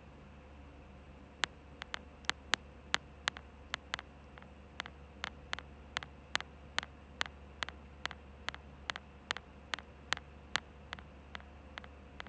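A run of sharp clicks or taps, about two to three a second in a fairly even rhythm, starting about a second and a half in, some louder than others.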